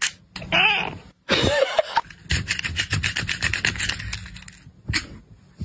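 A grooming brush scraping through a cat's fur in a fast run of short rasping strokes. Before the strokes come two short vocal sounds that waver up and down, and a single click follows near the end.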